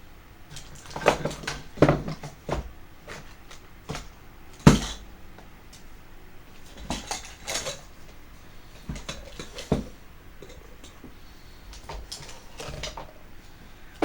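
Small metal and plastic parts clicking and scraping in irregular handling noises as the differential gears of a Tamiya TL01 RC car are picked clean of packed debris, with one sharper knock about five seconds in.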